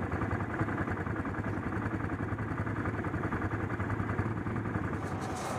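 ATV engine running steadily at a moderate pace, a fast even pulse from its exhaust.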